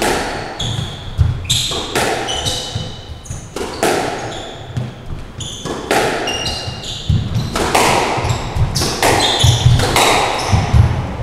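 A squash rally: the ball cracks sharply off rackets and walls about once a second, echoing around the court, with shoes squeaking briefly on the wooden floor and footsteps thudding between shots.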